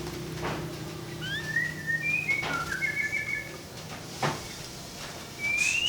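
Local canary singing short whistled phrases: rising and level clear notes in a cluster, then a rising whistle near the end. A few sharp clicks come between the phrases.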